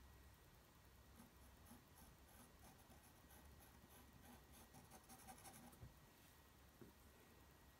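Faint scratching of a pencil stroking across toned paper, in short repeated strokes, as a portrait is shaded.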